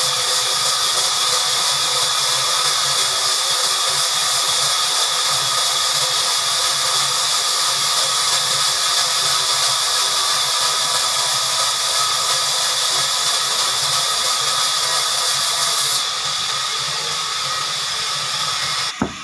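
Horizontal band sawmill blade cutting through a large log: a loud, steady, high sawing noise that eases slightly about sixteen seconds in and cuts off abruptly near the end.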